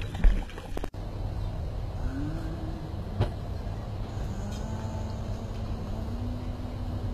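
A short burst of underwater noise that cuts off abruptly about a second in, then a steady low motor hum with a faint engine-like tone that rises about two seconds in and then holds.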